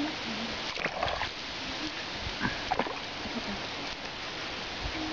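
A few light splashes and drips in a tub of water, about a second in and again near the middle, over a steady hiss.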